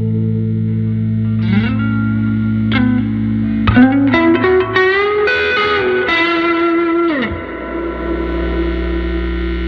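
Electric Telecaster-type guitar played through a 1968 Fender Vibrolux tube amp, with a slightly driven tone. Held notes slide up into a run of higher notes in the middle, then slide down about seven seconds in to a low note that rings on.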